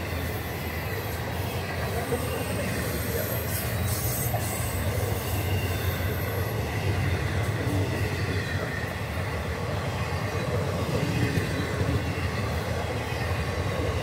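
Florida East Coast Railway intermodal freight train rolling past at speed: a steady rumble of steel wheels on rail, with a thin, high wheel squeal in the first half.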